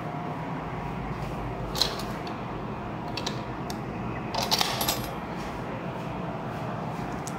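Metal room keys on a plastic key tag jangling and clicking as a hand handles the tag in a wall-mounted key-slot power switch, loudest in a short cluster about halfway through, with one sharp click a couple of seconds earlier. A steady low hum runs underneath.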